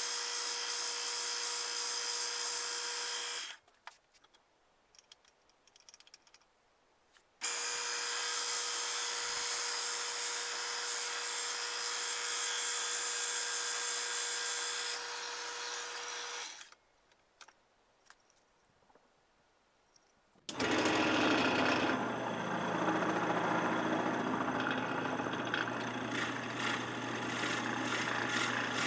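Electric drill running steadily with one held pitch in two long stretches, broken by near-silent gaps, as it bores the mounting hole in a wooden gun stock. About twenty seconds in, a different, lower-pitched power tool starts and runs to the end.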